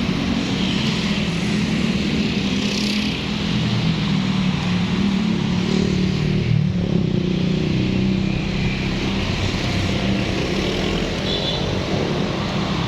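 Road traffic: car and motorcycle engines running steadily along a busy city street.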